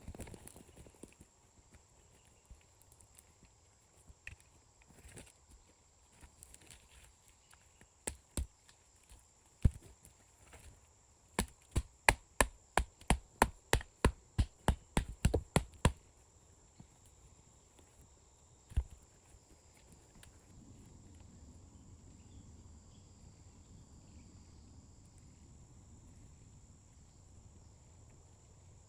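Wood being chopped with sharp, separate strikes: two single blows, then a steady run of about fourteen at roughly three a second, then one more.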